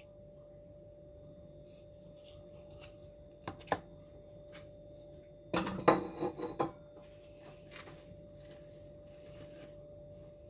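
Two quick knocks about three and a half seconds in, then a short rattling clatter of hard objects with a ringing tone about halfway through, over a steady faint hum.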